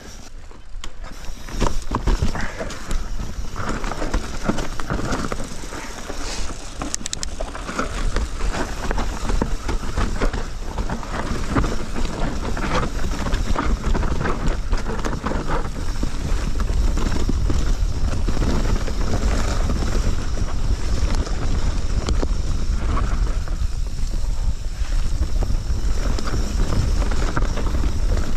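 Mountain bike riding down a dirt forest trail: tyres running over the ground and the bike's parts rattling over bumps, with wind rumbling on the camera microphone, stronger in the second half.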